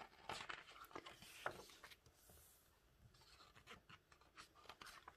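Glossy pages of a large photobook being handled and turned by hand: faint paper rustles and small clicks, busiest in the first two seconds as a page goes over, then sparser.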